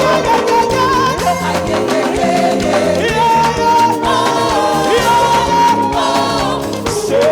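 Upbeat gospel praise music from a live band with a steady beat and long held, sliding melodic notes between sung lines.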